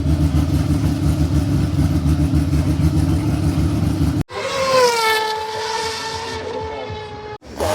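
Racing car engines, in two separate shots. First comes a deep, steady, low engine rumble. After a sudden cut about four seconds in, a high-pitched engine note takes over; it falls slightly in pitch and then holds steady.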